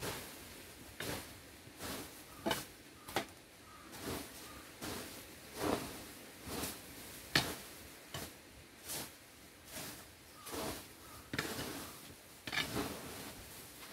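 A long-handled tool scraping and pushing through a heap of plastic bags on a concrete path: short scrapes with plastic rustling, roughly one a second.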